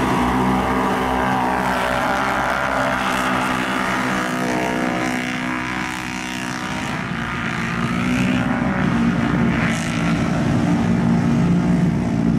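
Super-modified class ATV engines racing at high revs, held steady, easing off a little around the middle and then swelling again.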